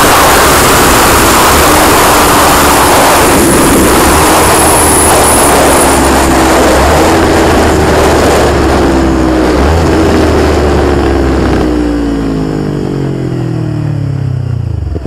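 Sport motorcycle ridden at road speed: loud wind rush over the rider-mounted microphone, with a steady engine note beneath it. About three-quarters of the way through, the wind eases and the engine pitch falls as the bike slows down.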